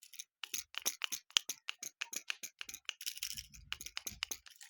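Small plastic fidget toy being clicked and squeezed close to the microphone: a quick, irregular run of sharp clicks, turning into a denser rustling with low bumps from handling about three seconds in.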